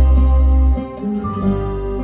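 Instrumental passage of a Vietnamese ballad: plucked acoustic guitar over deep sustained bass notes, played back through Bose 301 Series II loudspeakers. The bass eases off briefly just under a second in.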